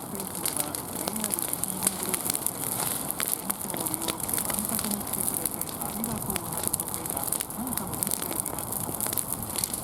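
Wood fire crackling, with a dense run of sharp pops and snaps over a steady hiss.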